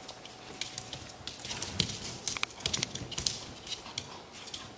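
Coton de Tulear puppies scampering and wrestling, their claws and paws making quick irregular clicks and taps on a tile floor and a plastic tray, busiest in the middle.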